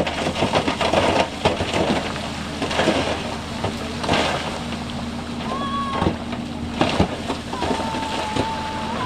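Heavy diesel earthmoving machinery running steadily while rocks clatter and knock again and again. A steady high tone sounds briefly halfway through and again for about two seconds near the end.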